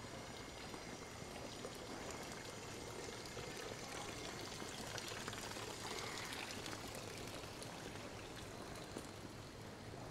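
Running water pouring and splashing steadily, growing louder for a few seconds around the middle.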